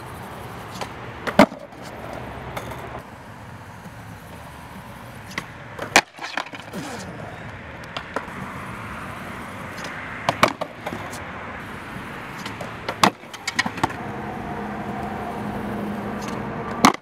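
Skateboard on concrete: urethane wheels rolling, broken by several sharp cracks as the tail pops and the wooden board slaps down or clatters away during fakie 360 flip attempts. The loudest cracks come about 1.5, 6, 10.5 and 13 seconds in.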